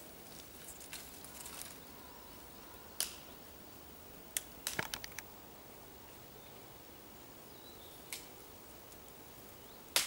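Scattered sharp cracks and crackles of dry twigs and leaf litter underfoot on a forest floor: one about three seconds in, a quick cluster around five seconds, another near eight, and a loud snap at the end.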